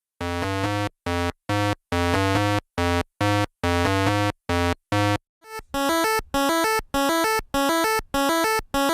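Synthesizer melody of short, separate notes in a steady rhythm, with a brighter, denser second phrase starting about halfway through.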